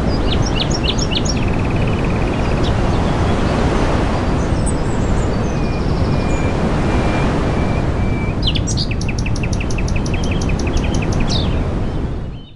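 Small songbirds calling over a loud, steady rushing noise: a few quick chirps and a short trill near the start, then a fast series of repeated chirps, about five a second, from about two-thirds of the way through. Everything cuts off suddenly at the end.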